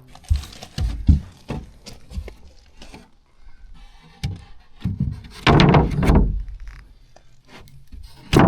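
Plywood and lumber being handled and set in place: scattered wooden knocks and thuds, with a louder scraping slide about five and a half seconds in.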